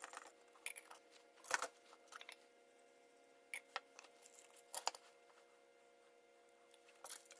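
Faint, scattered light clicks and taps of PVC pipe and fittings being handled while a cap is glued onto the pipe end, over a faint steady hum.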